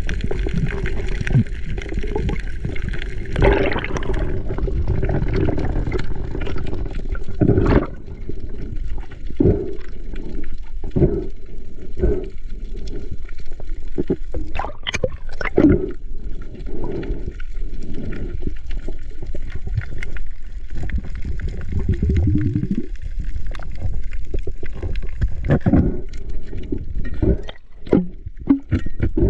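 Underwater sound picked up by a diver's camera: water rushing and gurgling past the housing, with many short knocks and clicks scattered throughout.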